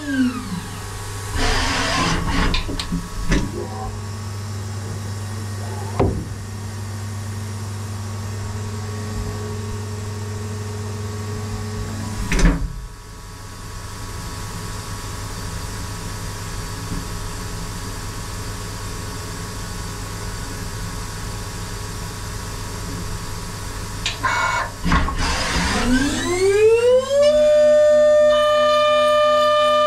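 DATRON neo+ CNC milling machine: the high-speed spindle winds down in a falling whine right at the start. Then the machine hums with a few sharp clicks, and near the end the spindle spins back up in a rising whine that settles into a steady high pitch.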